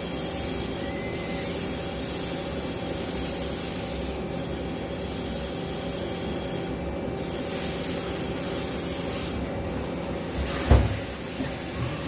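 Okuma L370 CNC lathe running, a steady machine hum under a high hiss that stops and starts every couple of seconds. A single short knock sounds near the end.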